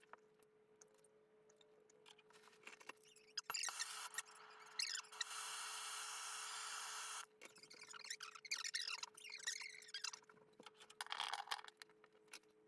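Hand work on copper plumbing: bursts of scraping and rubbing strokes, with a steady hiss for about two seconds in the middle that starts and stops abruptly. A faint steady hum runs underneath.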